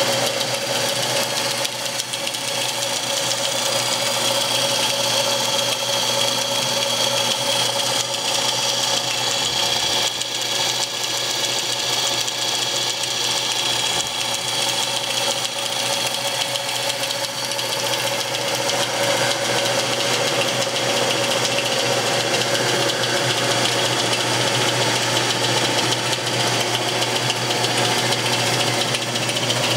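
Jet 12 x 36 metal lathe with a DC motor drive running steadily at about 500 rpm: an even mechanical running noise with a constant whine.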